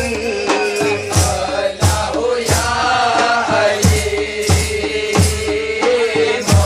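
Frame drums and tambourines beaten in a steady rhythm, about three strokes every two seconds, with jingles. Men's voices chant a held, wavering line over the drums.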